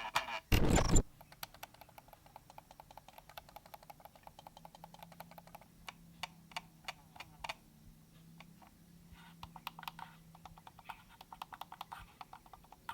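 Logitech MX Master mouse buttons clicking repeatedly and faintly, in quick runs over the first few seconds and then more sparsely. A louder thump comes about half a second in.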